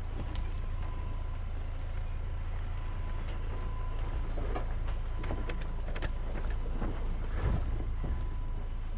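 Ford Ranger pickup crawling over a rough, rocky 2WD trail: a steady low engine and road rumble with scattered knocks and clicks from the truck bumping over rocks, and a louder thump about seven and a half seconds in.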